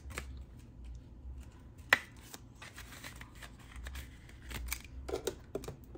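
Paper cash and envelopes being handled: light rustling with small clicks, one sharp click about two seconds in, and a short flurry of rustling near the end.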